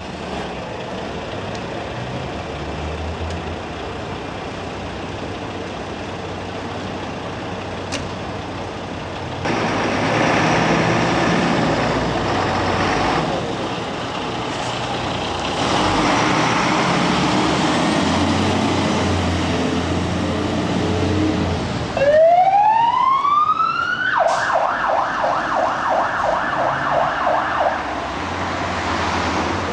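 Scania fire engine's diesel engine running as the appliance pulls out, its rumble growing louder partway through. About 22 seconds in, its siren winds up in a rising wail, then switches to a fast warble, about three cycles a second, for a few seconds before fading.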